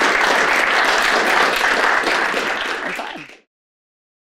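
Audience applauding steadily, then cutting off suddenly a little over three seconds in.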